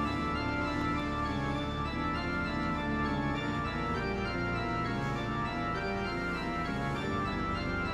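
Organ music: held chords that shift from one to the next, over a low bass line.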